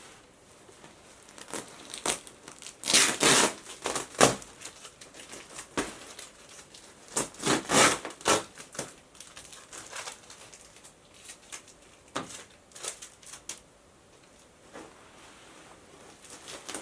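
Packaging crinkling as it is handled and opened by hand, in irregular bursts that are loudest about 3 and 8 seconds in.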